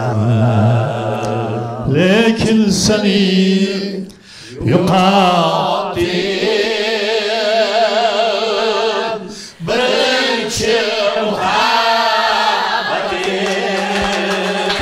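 Male voice singing long held notes with a strong wavering vibrato, broken by two short pauses about four and nine and a half seconds in.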